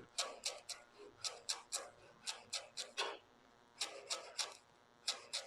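Knife chopping fresh coriander leaves finely on a cutting board: a run of short, crisp strokes, about three a second, in uneven groups with brief pauses between.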